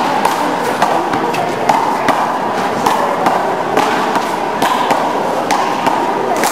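Handball rally: a string of sharp smacks at uneven intervals, roughly two a second, as the rubber handball is struck by hand and hits the walls and concrete floor of the court.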